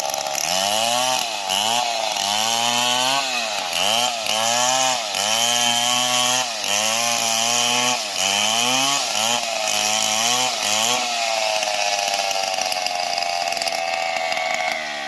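STIHL MS 070 chainsaw's large two-stroke engine running at high revs. For about the first eleven seconds its pitch dips and climbs back again and again, then it runs steadily with the pitch slowly sinking.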